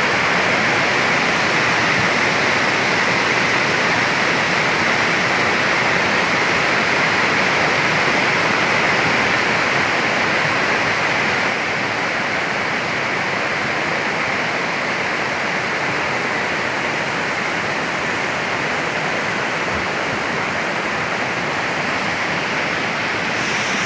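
Fast flash-flood water rushing, a loud steady roar that eases slightly about halfway through.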